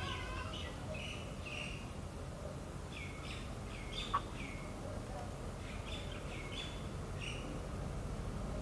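Small birds chirping: short calls that slide down in pitch, scattered throughout, over a steady low background hum. A single short click about four seconds in.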